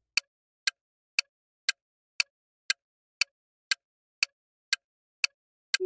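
Countdown timer ticking sound effect: sharp clock-like ticks, about two a second, with silence between them.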